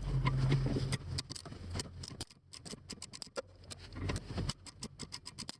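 A low hum stops about a second in. A hand ratchet wrench then clicks, in scattered strokes at first and then in a quick, even run, as a bolt on the steering shaft coupling is worked.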